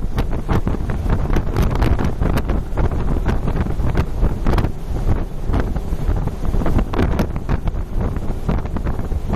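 Gusty wind buffeting the microphone, a steady low rumble broken by frequent short gusts.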